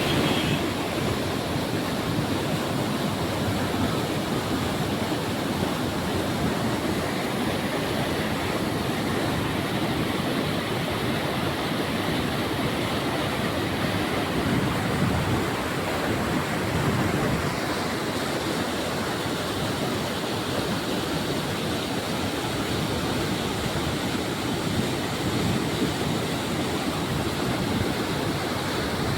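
Steady rushing of flowing water, an even noise that does not let up.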